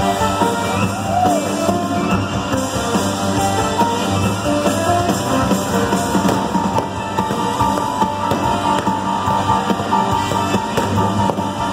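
Live rock band playing loudly in an arena, with drums and electric guitar coming through the PA and the hall around it.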